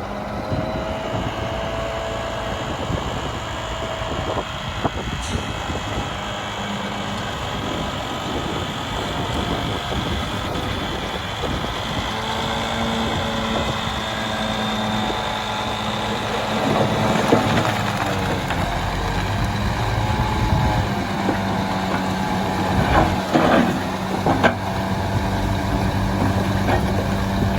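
Heavy diesel earthmoving machinery, a bulldozer or dump truck, running and working, its engine pitch rising and falling with load. A few sharp metallic knocks come near the end.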